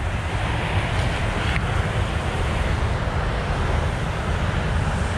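Steady rushing noise with a low, buffeting rumble of wind on the microphone.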